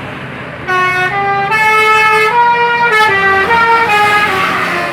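Bus 'telolet' multi-tone horn playing a short tune of about ten stepped notes. It starts about two-thirds of a second in and stops shortly before the end, over a low running-vehicle noise.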